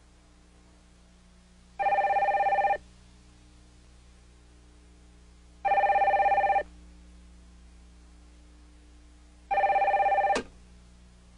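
Desk telephone ringing: three trilling rings of about a second each, roughly four seconds apart. A sharp click comes at the end of the third ring as the handset is picked up.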